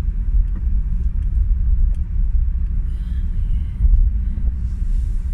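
Steady low rumble inside a moving car: engine and road noise heard from the cabin.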